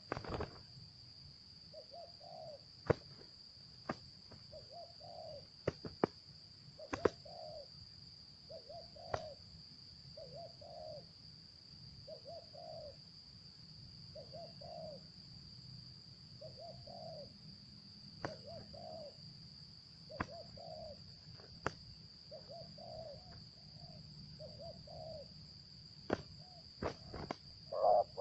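Spotted dove cooing, a short phrase about every two seconds, faint. Behind it there is a steady high-pitched drone and a few scattered sharp clicks.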